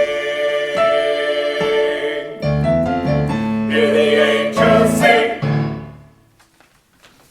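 Church choir singing with piano accompaniment. A held chord gives way about two and a half seconds in to several loud chords, which die away about six seconds in, leaving near quiet.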